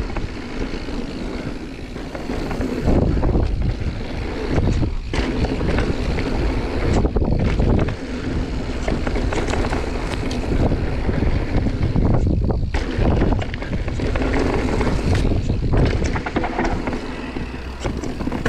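Wind noise rushing over an action camera's microphone as a Marin Mount Vision 8 mountain bike rolls fast down a dirt singletrack, mixed with tyre noise on the dirt. It swells and dips unevenly with the riding.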